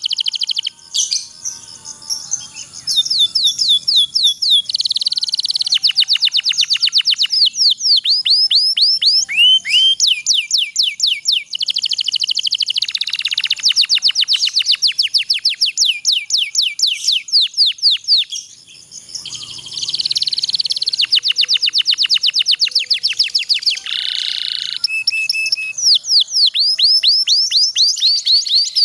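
Domestic canary singing long rolling trills: runs of fast, repeated rising notes lasting several seconds each, broken by brief pauses.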